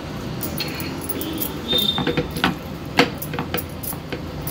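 Bangles on the wrist clinking and the wet squish of hands rubbing spice paste into raw rawas fish steaks on a plate, with a few sharp clicks between about two and three and a half seconds in, over a steady low hum.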